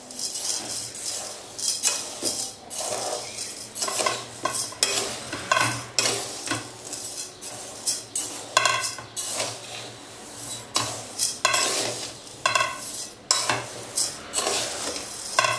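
Dry raw rice, urad dal and chana dal being stirred with a perforated steel spoon in a metal bowl: the grains rattle and the spoon scrapes the bowl in repeated strokes about once a second, and the bowl rings briefly on some strokes.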